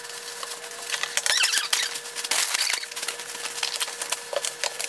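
Thin plastic grocery bags rustling and crinkling in irregular handfuls as groceries are pulled out of them, over a faint steady hum.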